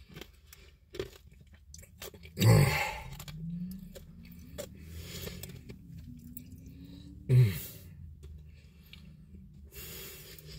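Someone chewing and crunching a mouthful of cherry slush with Nerds candy in it, between sips, with two loud short bursts about two and a half and seven seconds in.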